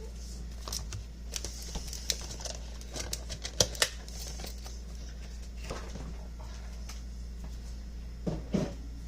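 Scattered light clicks and taps of things being handled in a kitchen, with a cluster of sharper ones about three and a half seconds in and a duller knock near the end, over a steady low hum.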